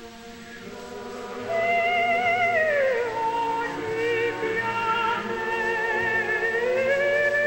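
Operatic soprano singing a sustained line with wide vibrato, entering loudly about a second and a half in over soft held notes, sliding down in pitch and then climbing back up to hold a high note.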